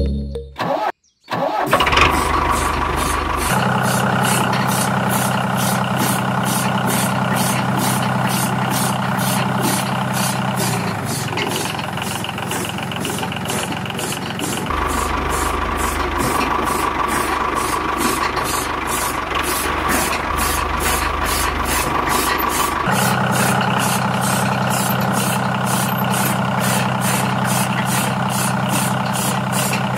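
Diesel walking-tractor engine running steadily with an even knocking beat. It starts after a brief gap about a second in, and its tone shifts a few times.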